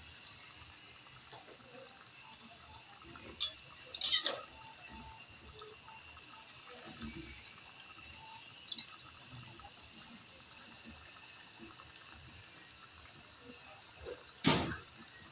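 Coconut milk simmering faintly in an aluminium wok, with a few sharp clinks of a metal ladle against the pan: two close together a few seconds in, a fainter one midway, and a loud one near the end.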